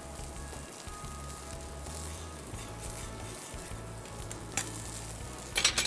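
Beaten eggs frying in olive oil in a nonstick pan on a hot grill, a steady sizzle. A few sharp taps near the end.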